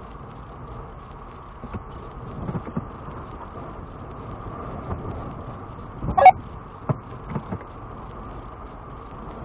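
Low, steady engine and drivetrain rumble inside the cabin of a Lexus GX470 crawling slowly over rock. Several knocks and bumps come from the truck working over the uneven granite. The loudest is one sharp jolt about six seconds in.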